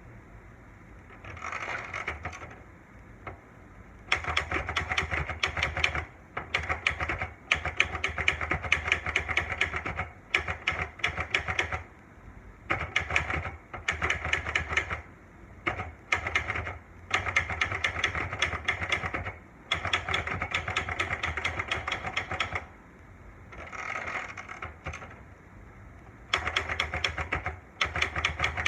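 Olivetti Lettera 92 manual portable typewriter being typed on: rapid key strikes in fast runs broken by short pauses.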